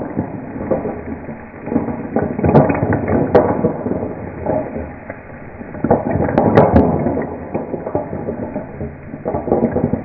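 Spotted babylon sea snails in their shells rattling and clattering in a frying pan as it is shaken over a flambé, the liquor in the pan burning in tall flames. It comes in waves of shaking, with sharp clicks of shell on shell and on the pan.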